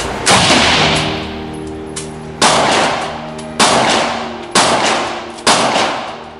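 Handgun fired five times in an enclosed indoor range, each shot sharp and ringing out in a long echo. The first two shots come about two seconds apart, then the rest roughly one a second.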